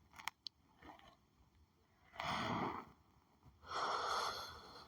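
A person breathing audibly close to the microphone: two breaths of about a second each, in the second half, after a few faint clicks.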